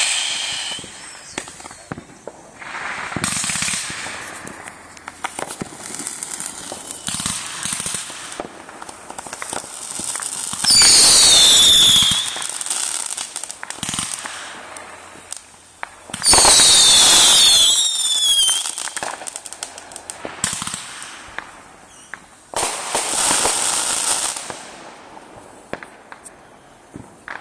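Fireworks going off in a series of bursts with crackling. The two loudest, about 11 and 16 seconds in, each last a second or two and carry several shrill tones that fall in pitch.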